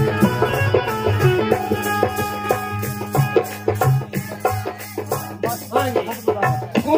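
Live Punjabi folk music: a held harmonium melody over a regular drum beat of about two strokes a second, with rattling percussion strokes; a singing voice comes in near the end.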